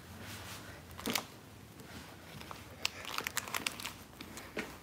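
Handling noise of a phone carried while walking: rustling with scattered sharp clicks and crackles, thickest about three to four seconds in.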